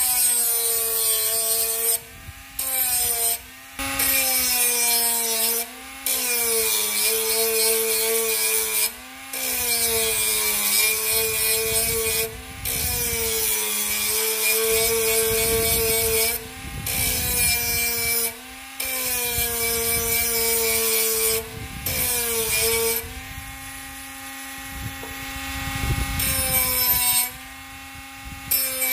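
Bosch GWS 12V-76 12-volt cordless mini angle grinder running and cutting. Its motor whine dips in pitch each time the disc is pressed into the work and recovers between cuts. There are several brief breaks, and a steadier, quieter stretch of free-running near the end.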